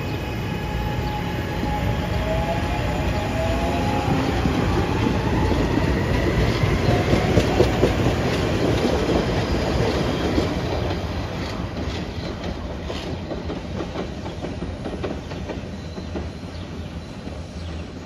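SEPTA Market–Frankford Line M-4 subway-elevated train pulling away from the station. Its motors whine up in pitch over the first few seconds, the wheels rumble and click over the rail joints, and the sound fades as the train recedes.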